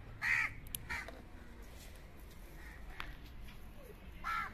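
Crows cawing: a loud caw just after the start, a shorter one about a second in, and another near the end.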